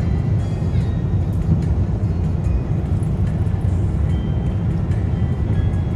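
Steady low rumble of cabin noise inside an Airbus A350-900 airliner on final approach with gear down: engine and airflow noise.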